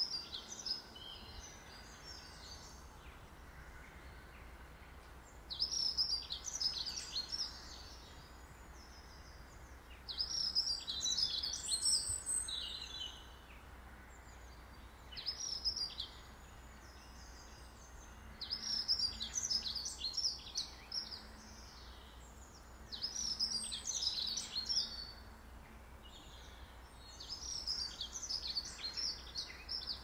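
A songbird singing, about seven short high-pitched phrases of a second or two each, repeated every few seconds, over a faint steady low rumble of outdoor background noise.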